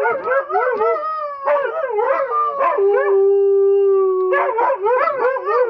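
Siberian huskies howling on command: wavering, overlapping yodel-like calls, with one long steady note held for about a second and a half near the middle.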